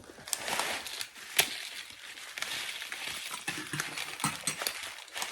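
Eating noises over a bowl of thukpa noodle soup: slurping and chewing, with a sharp clink of a spoon or bowl about one and a half seconds in.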